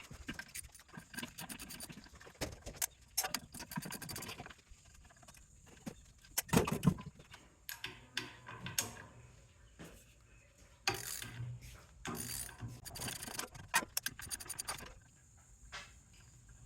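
Metal parts and hand tools clinking and rattling as a pump is taken apart, with a louder clunk about seven seconds in.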